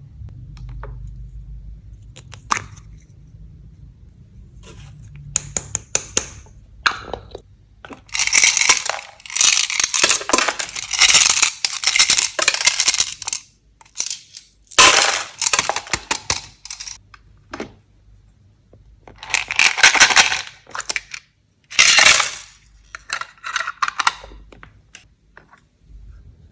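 Slime being handled and mixed by hand, giving scattered clicks and several spells of dense, sharp crackling, the longest about five seconds.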